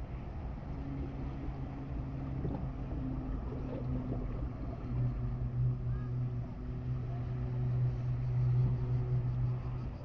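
Wash of sea and wind with a steady engine drone that comes in about a second in and grows louder through the second half.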